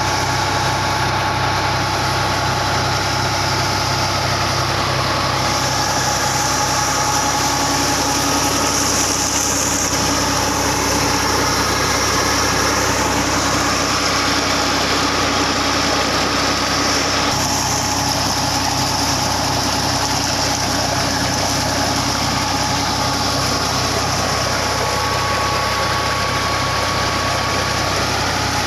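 Diesel tractor engine running at a steady speed under load, driving a flat belt and pulley that turn a centrifugal water pump on a shallow tubewell.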